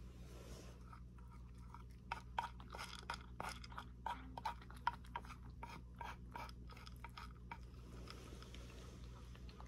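Cat crunching dry kibble from a wooden dish: quick runs of crisp crunches and clicks, sparse at first and thickest through the middle, over a steady low hum.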